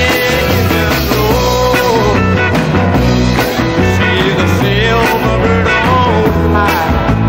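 Country-rock / rockabilly band music playing loudly, a wavering guitar or vocal melody line over a steady bass and drum backing.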